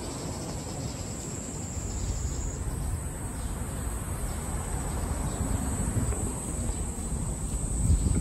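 Insects droning at a steady high pitch in the roadside trees, over a low rumble of street noise.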